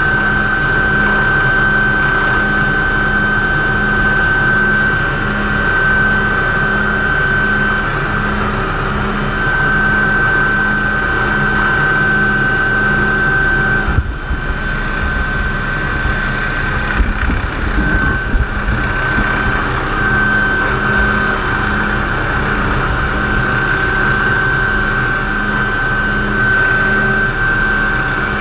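McDonnell Douglas MD500C (Hughes 369HS) helicopter heard from inside its cockpit: a steady high turbine whine over a pulsing lower drone from the rotor system. Around the middle, a few knocks and rustles break in briefly.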